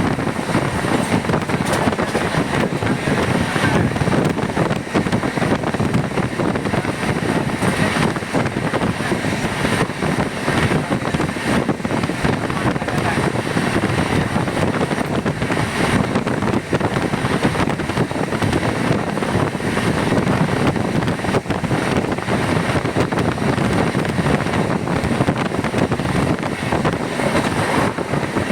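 A train running steadily, heard from on board as a continuous, even rumble.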